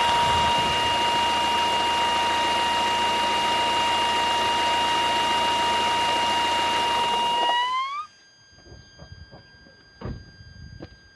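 Lada Vesta engine running with a steady high-pitched whistle, then switched off about seven and a half seconds in. As the engine stops the whistle glides upward. A fainter high squeal stays on after shut-off, with a few light clicks.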